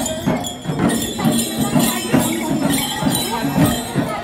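Bombo (Tamang shaman) dancers' round frame drums beaten in a steady beat, about two or three strokes a second, with bells jingling throughout.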